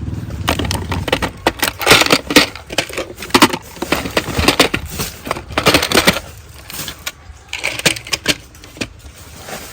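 Rapid clattering and rustling of objects being handled, a dense run of clicks and rattles that thins out after about six seconds.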